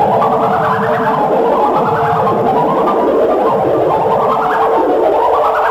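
Electronic music soundtrack: a warbling synthesized tone sweeping upward in pitch again and again, roughly every second and a half, over a steady held note.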